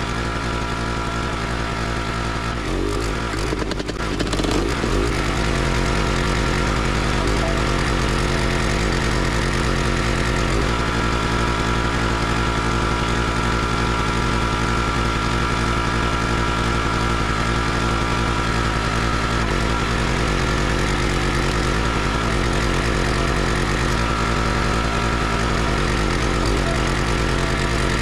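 Small gasoline engine of a log splitter running steadily, driving the hydraulic pump. A short spell of knocks and cracks about three to four seconds in, after which the engine runs a little louder.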